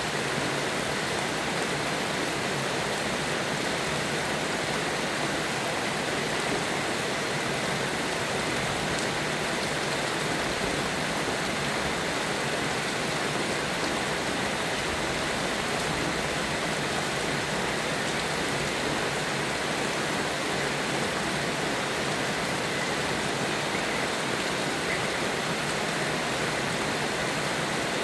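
Steady rain falling, an even hiss with no change in level and no thunder.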